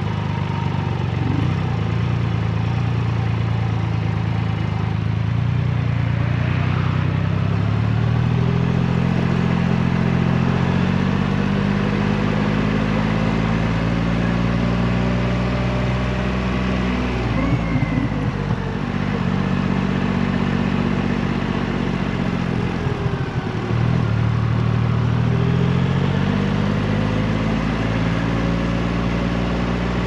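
Triumph Rocket 3's inline three-cylinder engine under way on the road. Its note climbs as it pulls, then drops sharply about halfway through and again about three-quarters of the way in before climbing again.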